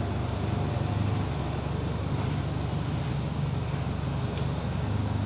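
Steady low mechanical hum under an even wash of background noise.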